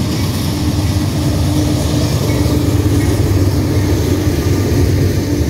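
Diesel freight locomotive passing close by, its engine droning steadily over the low rumble of the train. By near the end, loaded covered hopper cars are rolling past on the rails.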